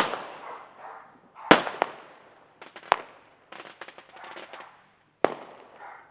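Aerial fireworks bursting: a sharp bang right at the start, the loudest, then more bangs about a second and a half and three seconds in, a patch of quick crackling around four seconds in, and another bang near the end. Each bang trails off in echo.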